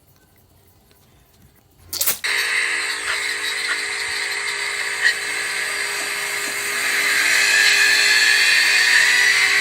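A chainsaw bursts into running about two seconds in, with a sudden start, and keeps going with a steady buzzing whine that grows louder in the last few seconds.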